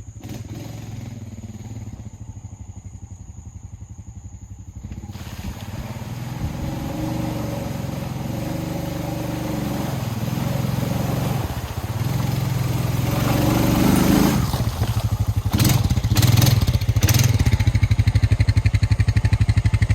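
Honda Rubicon 520 ATV's single-cylinder four-stroke engine running, low at first and growing louder through the middle as it works, with a few short knocks about three-quarters of the way through.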